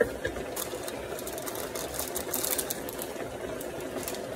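A pot of instant noodles boiling hard on the stove: a steady bubbling rumble with scattered crackles, and a sharp tap right at the start.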